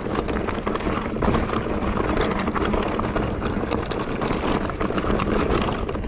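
Continuous riding noise of an electric mountain bike on a rough mountain trail: tyres rumbling over stones with small rattles and clicks.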